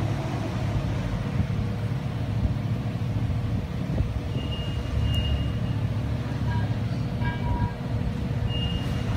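Steady low rumble of engines or traffic, with a few thin, high steady tones coming and going in the second half.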